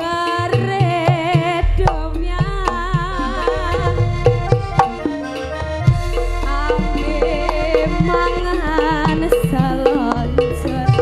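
Javanese jaranan music played live: kendang hand drums beating dense patterns under a wavering, ornamented melody line.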